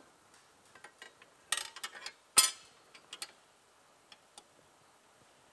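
Small metal parts clicking and knocking as a bracket and side plate are handled and fitted against a snowmobile's chassis: a quick run of clicks about a second and a half in, then one louder knock, with a few faint ticks after.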